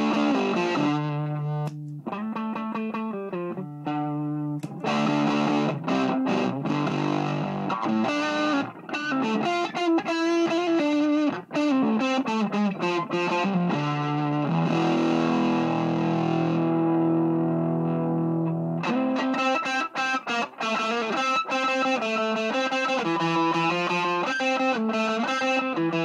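Electric guitar through a Univox Unidrive overdrive pedal into an EF86/EL84 valve amp head, played as distorted chords and riffs through a speaker cabinet. One chord is held and left ringing about halfway through, with chord changes before and after it.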